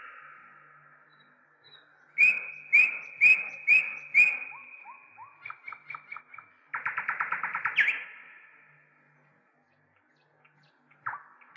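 Bird song: a run of five sharp chirps, then softer rising notes, then a fast trill about seven seconds in that ends on an upward note, with quiet gaps between phrases.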